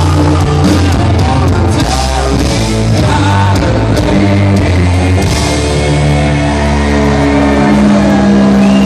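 Hard rock band playing live through a club PA: distorted electric guitar, bass and drums with cymbal crashes, settling into long held chords in the second half.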